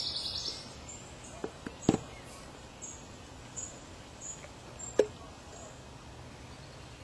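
A few sharp knocks and clinks of camp cooking gear, the loudest about two and five seconds in, the later one ringing briefly. A short high buzz ends just after the start, and faint high chirping repeats throughout over a low steady background.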